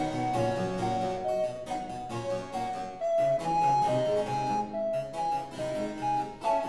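Background instrumental music: a quick run of keyboard notes over a lower accompaniment.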